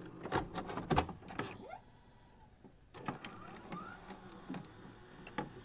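Quiet electronic glitch sound effects: scattered sharp clicks and short rising whirs, with a brief gap of near silence about two seconds in.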